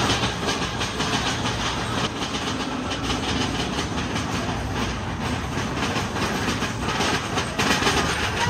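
Big Thunder Mountain mine-train roller coaster running along its track, the wheels clattering rapidly over the rails with a steady rumble, getting a little louder near the end.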